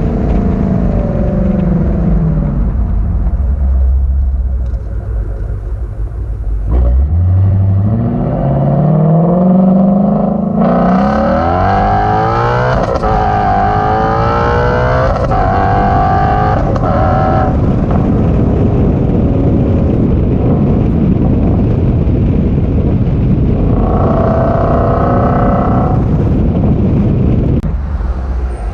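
A resonator-deleted Ford Shelby GT350's 5.2-litre Voodoo flat-plane-crank V8 being driven hard. It eases off at first, then from about seven seconds in accelerates hard, its pitch climbing and dropping several times through upshifts. It then holds a loud steady drone, with one more burst of revs near the end.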